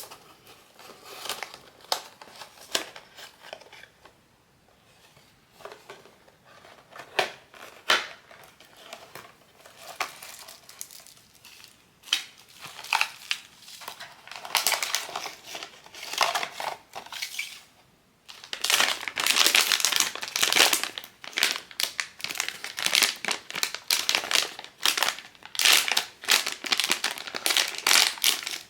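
Crinkling and crumpling of a blind box's plastic packaging being handled and opened by hand. Sparse crackles at first, then dense, continuous crinkling from a little past halfway.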